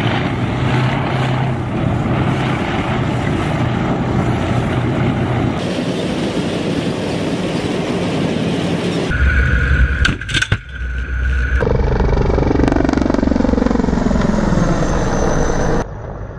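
Military tanks driving, their engines running with a steady low hum. About nine seconds in, a deeper rumble takes over, with a few sharp bangs, and then a whine that falls in pitch.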